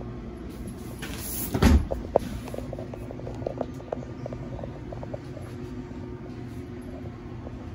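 One loud thump about a second and a half in, followed by scattered light clicks and knocks, over a steady low hum.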